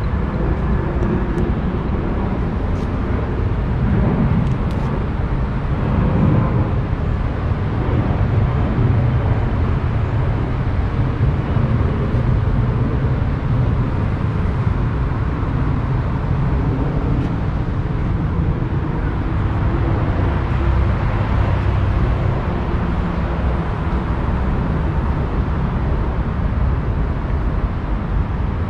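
Steady low rumble of a car moving slowly, road and tyre noise.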